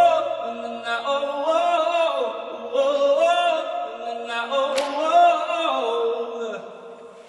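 Soundtrack music: a wordless sung vocal line in drawn-out phrases with sliding pitch, fading out near the end. A brief click about five seconds in.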